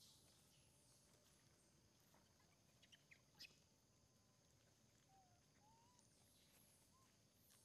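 Near silence: faint outdoor background with a few soft clicks about three seconds in and some faint short chirps later on.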